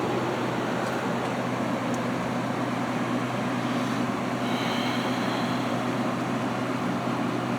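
Haier ESA410J-RGB 10,000 BTU window air conditioner running on cooling: a steady rush of fan air over a constant low hum.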